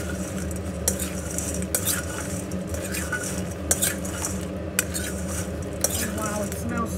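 A metal spoon stirring and tossing oiled chips in a stainless steel mixing bowl, with irregular clinks and scrapes of the spoon against the bowl, a few of them ringing briefly.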